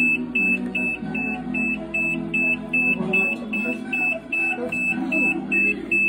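Black+Decker BPWH84W portable washing machine beeping steadily, about two and a half short high beeps a second: an alert that its owner puts down to the lid standing open after the cycle.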